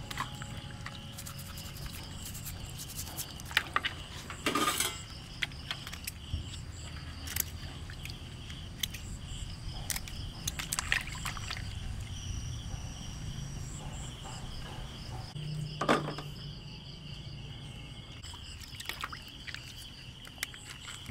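Water sloshing and trickling in a basin of live blue crabs as gloved hands lift and handle them, with a few sharp clicks of shell and scissors. A steady pulsing insect chirp runs behind.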